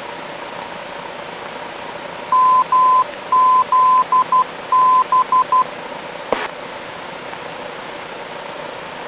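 VOR station's Morse code identifier heard over the aircraft intercom: a string of long and short beeps at one steady pitch, about three seconds long. A single click follows, over the steady drone of the cabin.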